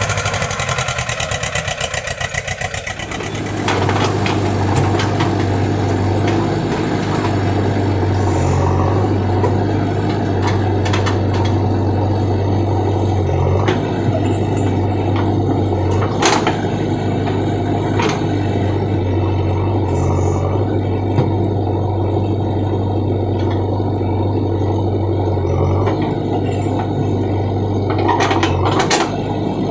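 JCB 3DX backhoe loader's diesel engine running: a pulsing, slower run for the first three seconds, then it picks up and runs louder and steadier for the rest. A few sharp knocks come through it, two in the middle and a pair near the end.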